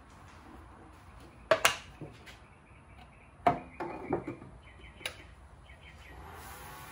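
A few sharp knocks and clicks of things being handled and set down at a stopped lathe, with quiet between them. There is a quick pair about a second and a half in, a louder knock at about three and a half seconds, and lighter taps after.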